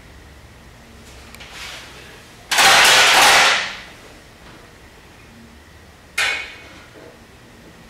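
A stack of metal kitchen bowls worked by hand with a small metal utensil: a loud scrape lasting about a second a third of the way in, then a single sharp strike that dies away within about half a second near the end.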